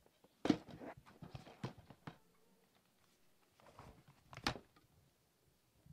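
Handling noise: a few sharp knocks and rustles as DVD cases are wedged under the shaky camera to steady it, in two clusters about four seconds apart.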